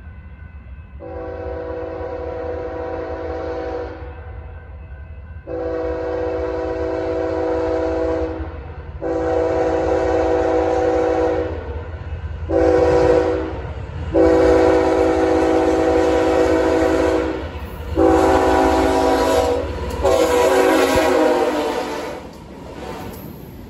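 A BNSF freight train's multi-chime air horn sounds a string of blasts, mostly long with one short blast in the middle, as the train approaches. Near the end the GE diesel locomotives roar past, with engine and wheel noise swelling under the horn.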